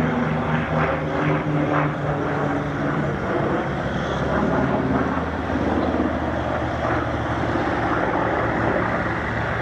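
Grumman F8F Bearcat's Pratt & Whitney R-2800 radial engine and propeller droning steadily in flight, with the pitch dropping a couple of times as it goes by.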